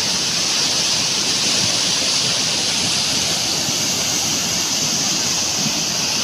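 Flash-flood torrent of muddy water rushing and churning down a stony streambed: a steady, loud rush of water.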